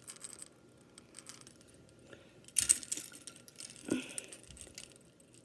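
Scattered light clicks and rustles of fingers handling a fishing hook and line close to the microphone. The loudest cluster comes about halfway through, with another short burst about four seconds in.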